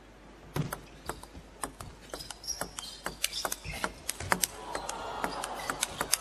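Table tennis rally: the ball clicking sharply and irregularly as it is struck by the rackets and bounces on the table, in quick succession from about half a second in.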